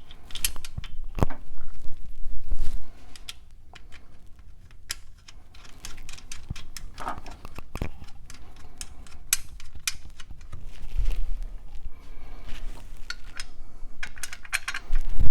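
Manifold washers and nuts being fitted by hand onto a Ford Model A engine's manifold studs: scattered metal clinks and taps.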